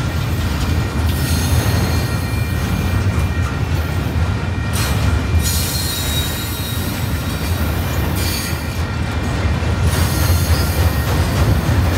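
A train rolling past with a steady low rumble from the wheels on the rails, and thin high-pitched wheel squeal held underneath. A higher squeal tone comes in briefly around the middle.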